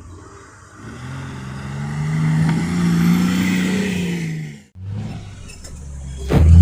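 Off-road 4x4's engine revving hard under load, its pitch climbing and then holding, cut off suddenly about four and a half seconds in. The engine sound then picks up again, and a loud thump comes near the end.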